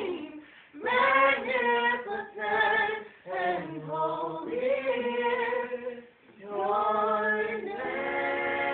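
A group of voices, women's most prominent, singing a praise song in phrases with short breaks between them.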